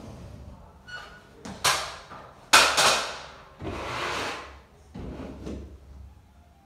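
Wallpaper smoothing tool swept in strokes across a freshly hung strip of wallpaper, pressing it flat along the seam: a series of scraping swishes, the loudest about two and a half seconds in.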